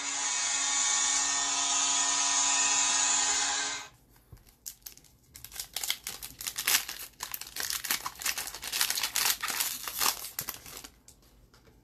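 A loud, steady buzz with many overtones cuts off suddenly about four seconds in. Then a hockey-card pack wrapper is crinkled and torn open for several seconds.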